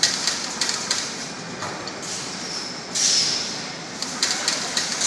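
Amorphous core cutting machine running its automatic cycle: clusters of sharp metallic clicks and ticks at the start and again near the end, with a loud burst of hissing about three seconds in. The pattern repeats every few seconds.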